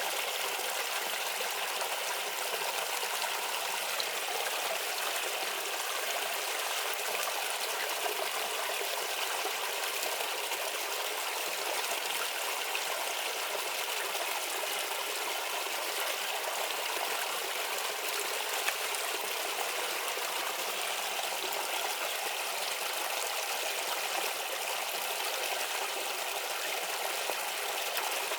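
Shallow stream babbling and trickling steadily over stones, with a bright, splashing rush that holds an even level throughout.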